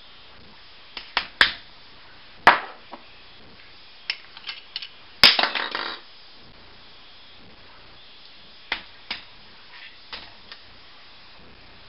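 Kitchen clatter from cooking prep: scattered knocks and taps of containers and utensils being handled, with one louder clatter just past five seconds that rings briefly.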